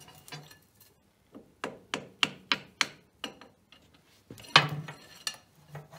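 A quick run of sharp metal knocks, about three a second, then a louder clatter: small steel parts from a lathe's apron switch linkage being handled and knocked against the machine and bench.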